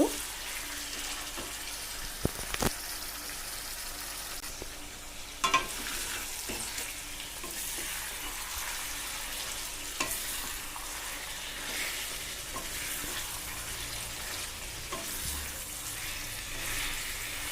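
Marinated chicken pieces sizzling in hot oil with onion paste in a kadai while a spatula stirs them, with a steady frying hiss and a few sharp knocks of the spatula against the pan.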